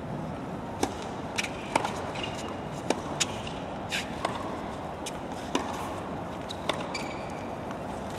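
Tennis rally: a string of sharp, irregularly spaced knocks of the ball off racket strings and bouncing on the court, about ten in all, over steady background noise.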